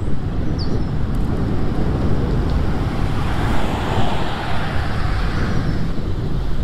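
Wind buffeting the microphone of a moving bicycle, with a car passing about halfway through, its tyre noise swelling and then fading.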